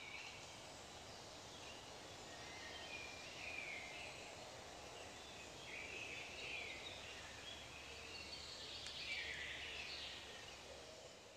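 Faint rural outdoor ambience with distant birds calling on and off, a little louder about nine seconds in.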